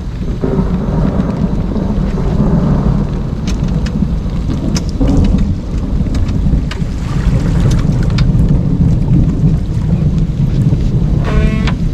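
Rain falling, with a loud, steady low rumble under it and a few sharp ticks of drops. A short tone sounds briefly near the end.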